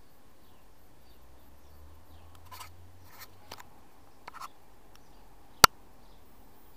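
Quiet outdoor background with faint bird chirps, a few short soft scuffs in the middle, and one sharp click about five and a half seconds in.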